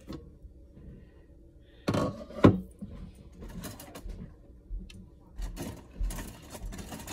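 Glass pot lid lifted off a ceramic crock and set down: a clatter about two seconds in that ends in one sharp knock, followed by lighter clicks and knocks of handling.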